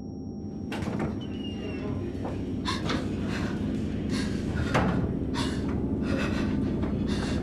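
Door and latch clattering and knocking, many irregular sharp knocks and rattles starting about a second in, over a low rumble that grows steadily louder.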